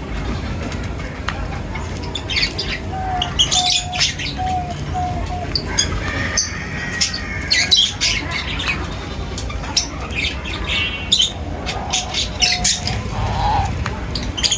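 A flock of birds chirping and squawking, with many short sharp calls overlapping and a run of five or six short, lower notes a few seconds in, over a steady low rumble.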